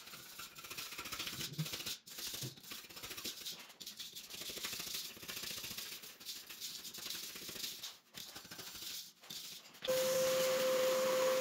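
Long-handled floor scraper scraping old mortar and tile debris off a concrete slab, an irregular gritty scratching, clearing the spot for a replacement tile. Near the end a shop vacuum switches on and runs with a steady whine and hiss.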